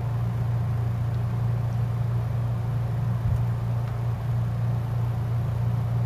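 A steady low hum over faint background hiss, unchanging throughout.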